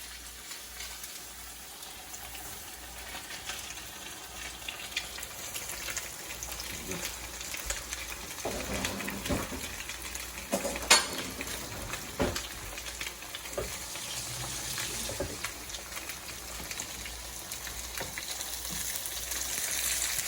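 Floured tilapia fillets sizzling and crackling in hot oil in a frying pan, the sizzle growing louder toward the end. A few sharp knocks come through the middle, one of them the loudest sound.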